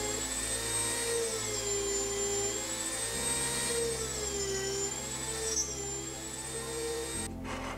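Dremel rotary tool running at high speed while carving white pine, its whine wavering up and down in pitch as the bit bears into the wood. It cuts off near the end.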